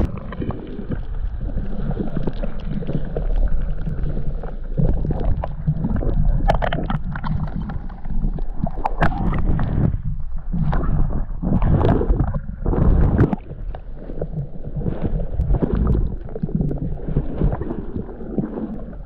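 Wind buffeting the microphone over water splashing and gurgling against a kayak's hull, with scattered knocks and splashes.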